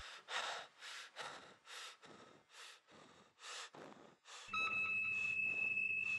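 Faint, quick breathing or panting by a person, about two breaths a second. From about two-thirds in, a steady high-pitched tone with a low hum underneath comes in.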